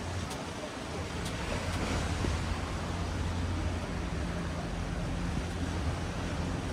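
Seaside outdoor ambience: a steady rush of wind and sea surf, with a low, steady engine hum of road traffic that firms up about a second in.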